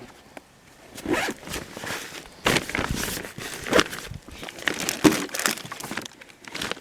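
Irregular rustling, scraping and crinkling of gear and food packaging being handled, with a few louder scrapes spread through.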